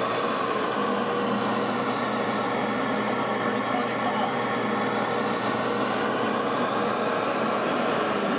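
SuperFlow flow bench blower motors running steadily at full test pull, about 20 inches of water, drawing air in through a cone air filter on the test pipe: a steady rush of air with a motor whine.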